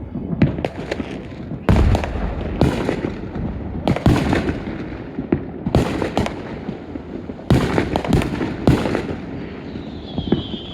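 Fireworks going off: a quick series of loud bangs with crackling between them, and a short high whistle near the end.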